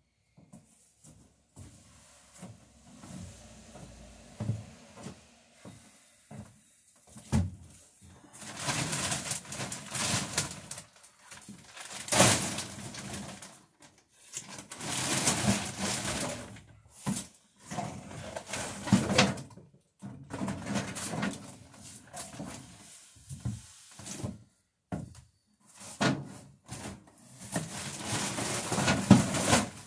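Repeated scraping strokes of a hand tool along wood, each a second or two long, starting about a quarter of the way in and coming in a run of eight or so with short pauses between.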